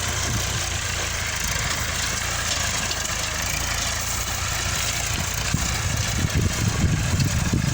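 Farm tractor engine running steadily as it ploughs the field. It grows louder and more uneven in the last couple of seconds.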